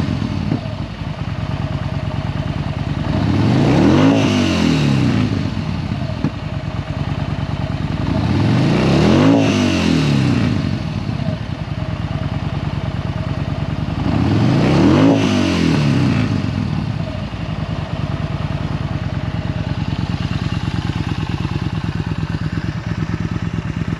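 2016 Yamaha Bolt R-Spec's air-cooled V-twin running in neutral through an Akrapovic exhaust: it is blipped three times, each rev climbing and falling back over about two seconds, with a steady idle between and for the last several seconds.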